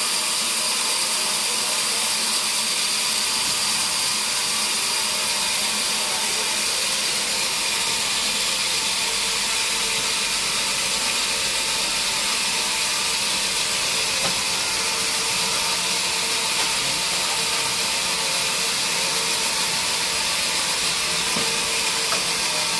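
Sawmill machinery running steadily: a continuous hissing whine with several held tones, unbroken throughout.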